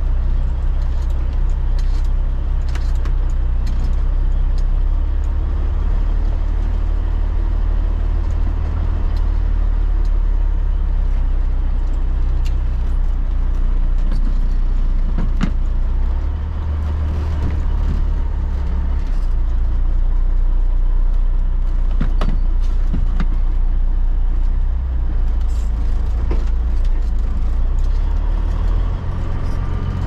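Caterpillar 3406B inline-six diesel of a cabover semi running under way, heard from inside the cab as a steady low drone with cab rattles and a few sharp clicks. The engine note dips and changes about halfway through and again near the end, at gear changes.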